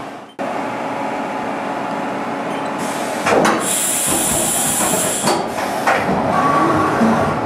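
Haas VF-2 CNC vertical mill running inside its enclosure, a steady machine whir and hum. A loud, high hiss of air joins it for about two seconds around the middle.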